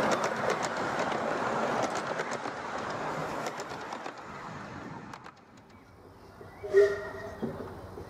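Miniature railway carriages rolling past on 7¼ in gauge track, the wheels clicking and rattling over the rail joints, fading away over about five seconds. Near the end comes one brief, sharp sound with a short tone in it.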